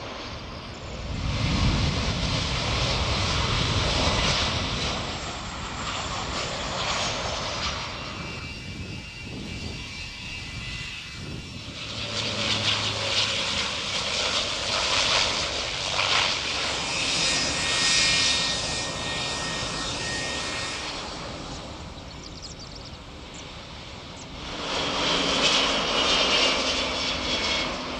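Twin-engine jet airliners taking off and passing: loud jet engine noise at takeoff power with a deep rumble, building a second or so in and fading after about seven seconds, then a quieter high engine whine. A second aircraft passes with steady whining tones through the middle, and another takeoff builds loudly near the end.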